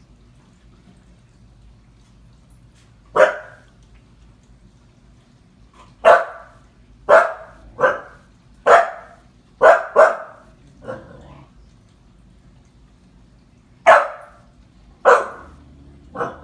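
Seven-month-old Husky puppy barking in alarm, loud single barks: one, then a run of about seven with the last one weaker, a lull, and two more near the end.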